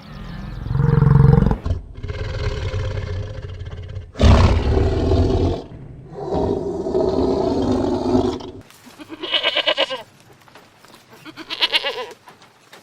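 A large animal roaring four times in deep, drawn-out calls, then two short wavering bleats near the end.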